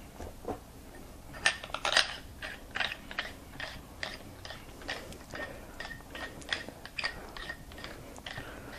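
Hands handling a Dangerous Power E1 paintball gun and its parts: irregular hard clicks, knocks and light rattles a few times a second, loudest about two seconds in.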